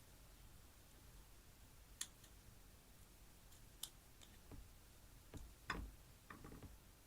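Near silence with a few faint, sharp clicks and soft knocks from small objects being handled, the clicks about two and four seconds in and a cluster of soft knocks near the end.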